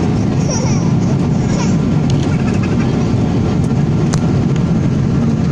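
Steady low rumble of a jet airliner's cabin in flight: engine and airflow noise heard through the fuselage. There is a faint sharp click about four seconds in.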